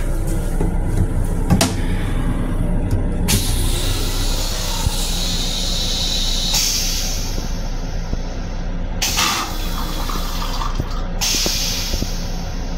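Toilet in an M7 railcar restroom flushing: a hiss of rinse water into the stainless steel bowl for about three seconds, starting a few seconds in, then two more bursts near the end. A steady low rumble from the railcar runs underneath.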